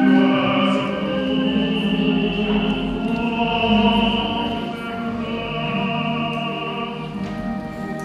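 Music with an operatic-style singing voice holding long notes.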